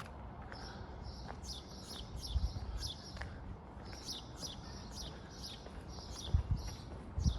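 Small birds calling, a series of quick high falling chirps at about two a second. Low thuds and rumble underneath, loudest about two seconds in and near the end, which fit footsteps on the trail.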